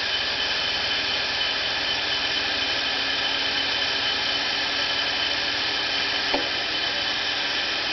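Cincinnati Toolmaster vertical milling machine running with its spindle turning and the power quill down feed engaged: a steady motor and gear whine. A small click about six seconds in.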